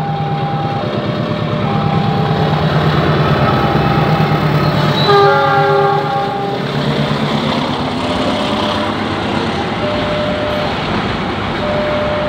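GE CC206 diesel-electric locomotive passing with a container freight train, its engine a steady low drone. It sounds one horn blast of about a second and a half, about five seconds in. A two-note level-crossing warning alarm alternates before and after the horn.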